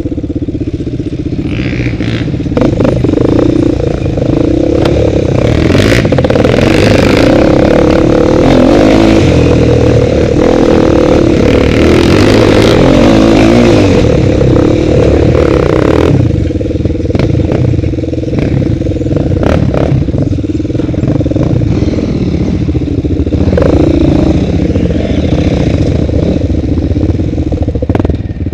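Quad bike (ATV) engine running hard with a steady drone, loudest for the first half and easing off somewhat after about sixteen seconds. Clattering and knocks from the machine bouncing over a rough dirt trail are mixed in.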